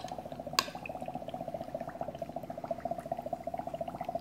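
Dry ice bubbling steadily in a jar of cabbage juice, a fast, even run of small bubbles. A sharp tap about half a second in as a small piece of chalk drops into a paper cup of liquid.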